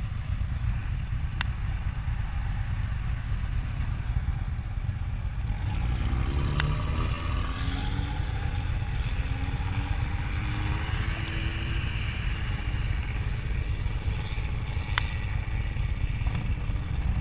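Motorcycle engine idling with a steady low rumble, while another vehicle passes and speeds up, rising in pitch from about six seconds in. A few sharp clicks sound over it.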